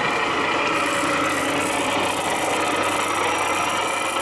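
An engine idling steadily with a constant low hum.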